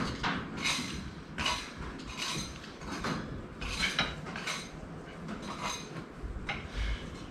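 A screwdriver scraping and prying against metal on a 350 Chev engine, in short irregular strokes about every half second to a second.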